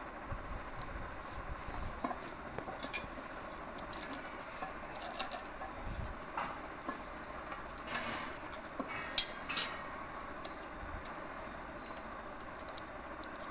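Scattered metallic clinks and light knocks of tools and metal tap fittings being handled while a basin mixer tap is changed, with a few sharper ringing pings, the loudest about nine seconds in.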